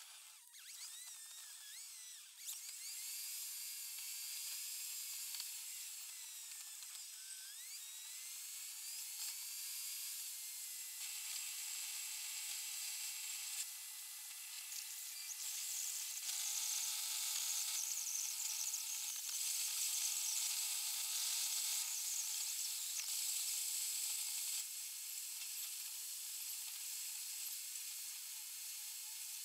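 Car-interior dashcam sound sped up in a time lapse, so that road and engine noise become a high, even hiss with no low rumble. Thin whining tones glide up and down through the first eight seconds or so, and the level steps up and down every few seconds.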